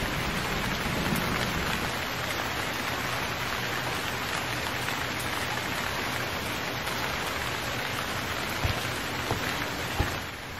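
Steady rain falling, an even hiss, with a few short knocks near the end.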